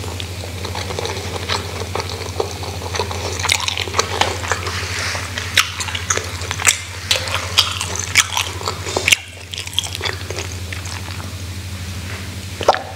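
Close-up eating sounds: a mouth chewing rice and crunchy side dishes, with wet smacks and crisp crunching clicks, over a steady low hum. Near the end she sips from a glass of water.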